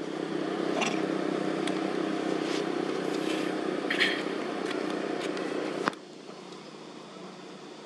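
A motor vehicle's engine running steadily as a low hum, which drops away abruptly about six seconds in. A few short clicks are heard over it.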